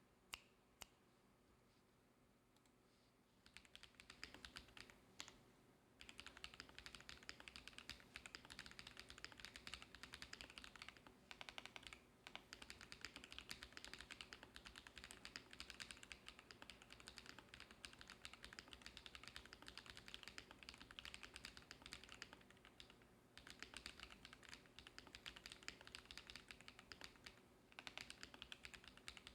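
Typing on a Noir Gear Timeless82 mechanical keyboard with Akko V3 Cream Yellow linear switches and GMK Parcel keycaps. Two lone key clicks come first, then quick, even keystrokes in long runs with a few short pauses.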